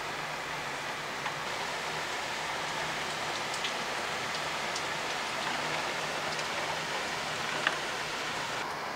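Heavy rain pouring steadily onto trees and pavement, with close drops ticking sharply now and then, the loudest near the end.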